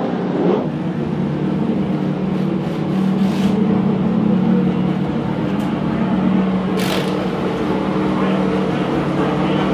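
An engine running at a steady, unchanging pitch: a low hum with its overtones. There is a single sharp click about seven seconds in.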